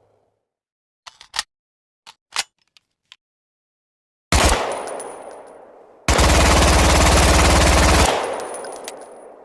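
KG-9 9mm submachine gun: a few light mechanical clicks, then a single shot a little past four seconds in that rings off slowly, then a burst of automatic fire lasting about two seconds with a long echoing tail.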